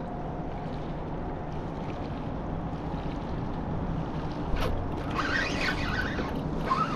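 Steady wind and water noise on open water, with a short run of high, wavering sounds in the last two seconds.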